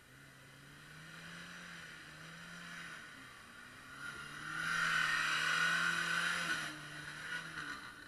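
Engine of a 4x4 SUV working hard through deep mud, its note rising and falling with the throttle and growing louder as it approaches, loudest for a couple of seconds past the middle. The wheels churn through mud and water along the way.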